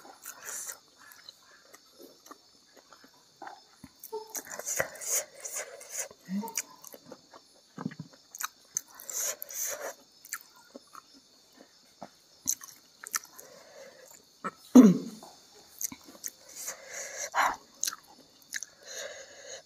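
Close-miked chewing with many wet mouth smacks and clicks, a person eating rice and side dishes by hand. A louder, short low sound from the mouth comes about three-quarters of the way through.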